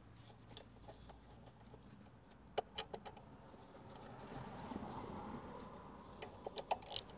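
Scattered light metal clicks and clinks of hand tools and a motorcycle brake caliper being handled, with a sharp click a few seconds in and a quick cluster near the end, over a low hum of road traffic.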